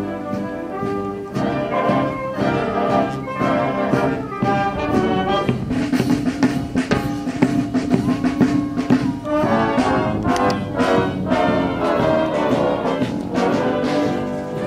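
Brass-band music with trumpets, trombones and drums, playing continuously.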